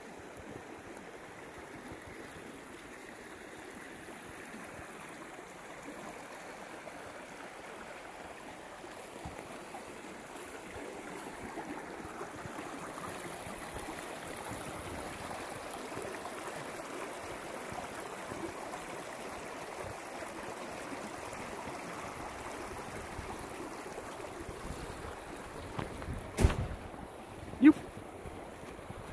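Rain-swollen creek rushing steadily over rocks. Near the end come two sudden loud thumps, a little over a second apart.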